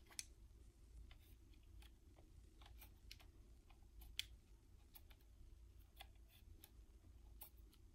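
Faint, irregular ticks and scratches of a pencil tip drawing on the plastic shell of an Xbox controller, over a low steady room hum.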